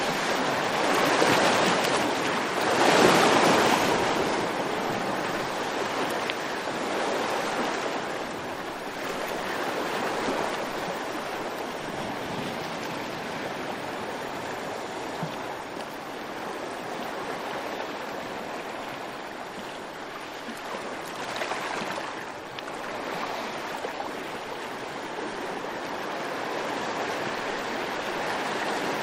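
Surf-like rushing noise of waves washing, swelling loudest in the first few seconds and again about 21 seconds in.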